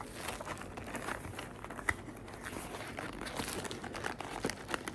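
Crinkling and tearing of packaging as a sealed hobby box of trading cards is opened, with many small, irregular crackles.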